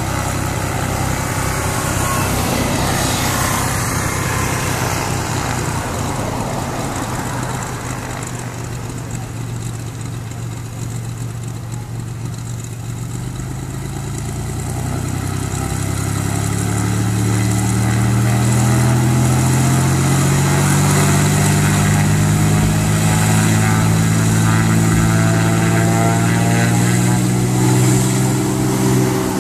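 Cessna U206G Stationair's single piston engine and propeller running at low taxi power. About halfway through, the engine note rises and grows louder as power is added, then holds steady.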